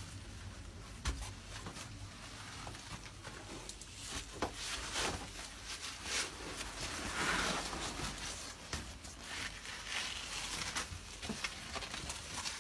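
Scattered small knocks, clicks and scrapes with rustling, from someone moving and handling material in a cramped space. The rustle grows louder about seven seconds in.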